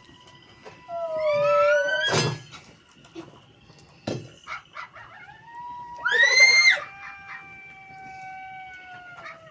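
Animal calls: several drawn-out, pitched cries, some rising and some overlapping, with the loudest about six seconds in and long held calls fading toward the end. Two short knocks sound in between.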